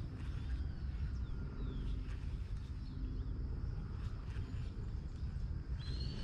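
A steady low rumble, with faint short bird chirps now and then and one clearer chirp near the end.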